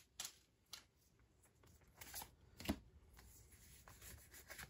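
Faint, scattered clicks and light rustles of Pokémon trading cards being handled, with a sharper click about two and a half seconds in.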